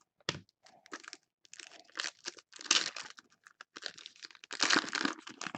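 Foil wrapper of a 2015 Donruss soccer card pack crinkling and tearing as it is ripped open by hand, in a run of short, irregular crackles.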